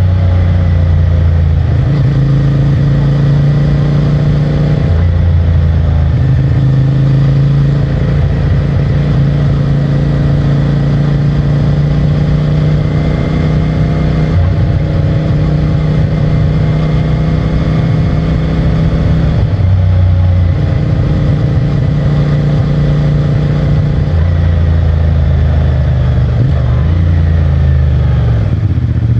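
CFMOTO 450MT's 449 cc parallel-twin engine running on the road through its stock exhaust, steady for long stretches, with its note changing a few times, about five seconds in, around twenty seconds and again about four seconds later.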